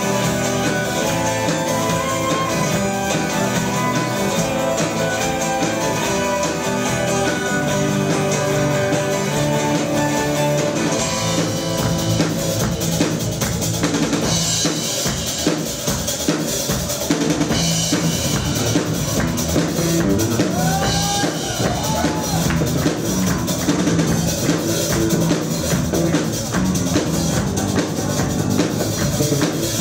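A live band playing a song on violin, acoustic and electric guitars, bass guitar and drum kit. The drums come in much more strongly about twelve seconds in, turning the melodic opening into a driving full-band section.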